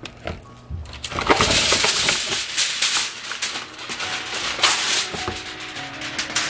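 Aluminium foil crinkling and crumpling as it is folded and pressed around a piece of meat, in rapid bursts starting about a second in.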